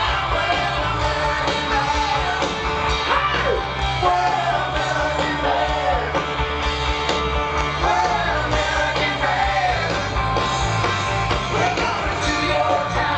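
Live rock band performing: a lead singer over electric guitar and a steady drum beat, amplified through a concert PA and heard from the audience.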